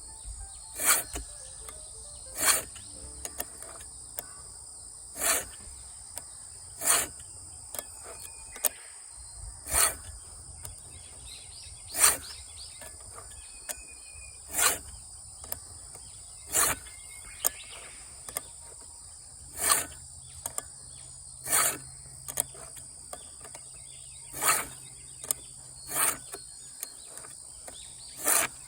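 Sharpening file rasping across the cutter teeth of a Husqvarna Rancher 450 chainsaw chain, in short single strokes about every two seconds. Steady high insect buzzing runs behind.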